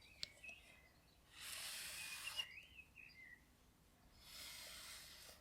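A sticky lint roller rolled over a T-shirt in two strokes of about a second each, a soft papery rasp, with a couple of light clicks just before.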